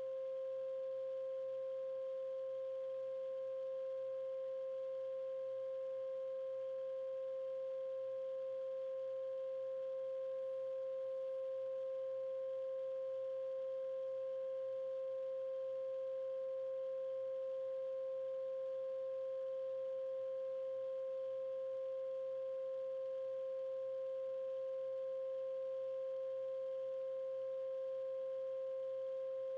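A steady 528 Hz tone, the so-called solfeggio healing frequency, holding one pitch without change, with a fainter overtone an octave above.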